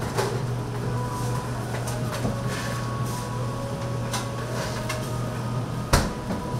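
Soft scraping and light clicks of a spatula spreading sauce on sliced bread, with one sharp knock about six seconds in, over a steady low hum.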